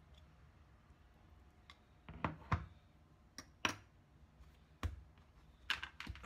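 A handful of short, sharp knocks and clicks at irregular spacing, starting about two seconds in: a utensil against a metal can and the can set down on a plastic cutting board, then a dough ball handled on the board.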